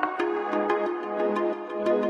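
Background electronic music: held synth chords with light percussion ticking at a steady beat.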